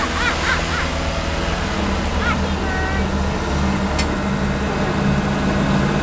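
Mitsubishi Fuso dump truck's engine running as the truck drives close past, a steady low drone. Short high-pitched calls sound over it near the start and about two to three seconds in, and a sharp click about four seconds in.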